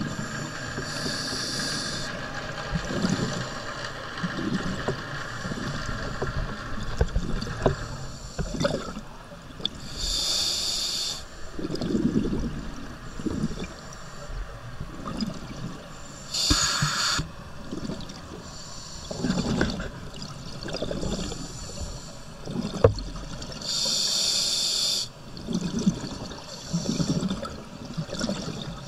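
Scuba diver breathing through a regulator underwater: each inhalation draws a hiss of about a second from the regulator, four times several seconds apart, and the exhalations in between come out as low bubbling rumbles. A single sharp click sounds about two-thirds of the way through.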